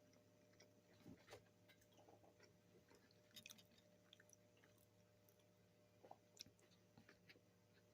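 Faint close-miked chewing of fast food: soft, irregular mouth clicks and smacks over a faint steady hum.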